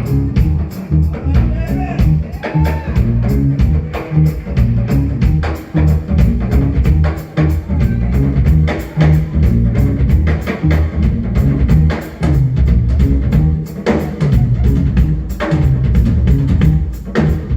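Live smooth-jazz band playing: drum kit keeping a steady groove under electric bass, with guitar and a lead line bending in pitch in the first few seconds.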